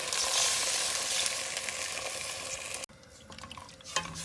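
Water poured into a hot pot of frying chili paste, garlic, ginger and scallion, giving a steady sizzling hiss that cuts off abruptly about three seconds in.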